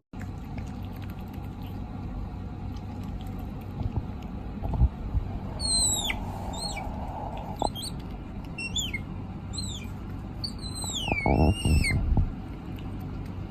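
A young animal giving a series of short, high-pitched peeps that each fall in pitch, starting about halfway through, over a steady low background with a few soft knocks and rustles.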